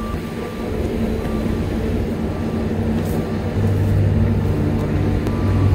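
A vehicle engine running steadily nearby, with a low hum that grows louder a little past the middle.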